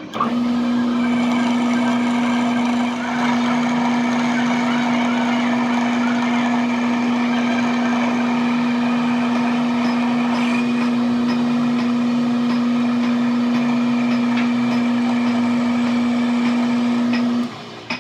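A machine running at a steady speed with a strong, even hum, starting suddenly and cutting off abruptly near the end.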